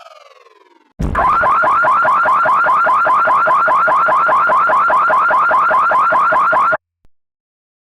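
Synthesized alarm tone from a fictional emergency alert: a falling siren tone fades out, then about a second in a loud, rapid warbling chirp starts, repeating about five times a second, and cuts off suddenly near the end.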